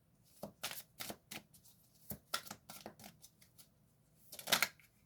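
Tarot cards being shuffled and handled by hand: a run of quick card snaps and flicks, with a longer, louder burst of card noise near the end.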